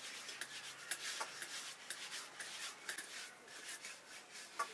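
Palms rubbing and rolling rice-flour dough into thin strands on floured wooden boards: a soft, dry rubbing with many light clicks and taps scattered through it.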